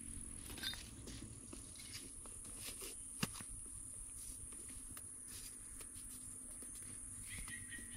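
Outdoor ambience: a steady high insect buzz with scattered light knocks and rustles, one sharper knock about three seconds in.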